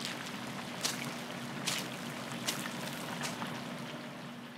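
Battered chicken deep-frying in a wok of pure cottonseed oil: a steady sizzle and bubble, crossed by short sharp clicks about once a second, with a faint low hum underneath.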